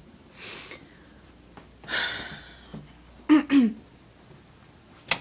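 A person's breath and voice sounds: a faint breath, then a louder breathy exhale about two seconds in, followed by two short voice sounds that fall in pitch. A sharp click comes near the end.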